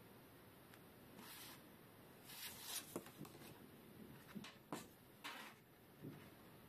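Faint handling sounds: several brief rustling swishes and a few light clicks, spread between about one and five and a half seconds in.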